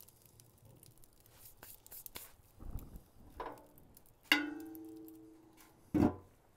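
Steel Pit Barrel Cooker clanging as it is handled: one sharp metal strike that rings out for about a second, then a duller thump near the end as the lid is set on, with a few soft knocks before.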